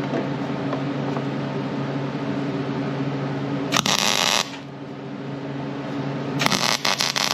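Two short bursts of a wire-feed welding arc hissing and crackling as steel key stock is tacked to a plate: one lasting under a second about four seconds in, and a second, more crackly one near the end. A steady machine hum runs underneath.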